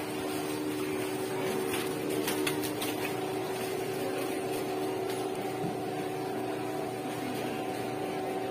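Supermarket ambience: a steady hum with several held tones, and a few light crackles, like plastic bread bags being handled, about two to three seconds in.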